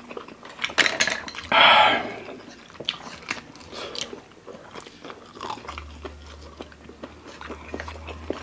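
Close-miked eating sounds of spicy instant noodles: a loud slurp about a second and a half in, then wet chewing and smacking clicks.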